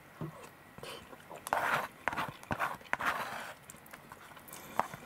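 Someone eating curry and rice: chewing and breathing mouth noises, with a few sharp clicks of a metal spoon against the plastic container.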